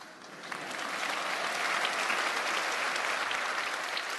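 Large audience applauding: dense clapping that swells over the first second or so, holds steady, then eases off near the end.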